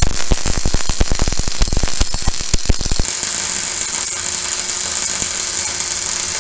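MIG (wire-feed) welding arc running a bead on a steel axle-truss corner joint: a dense, rapid crackle for about three seconds, then a steadier hiss.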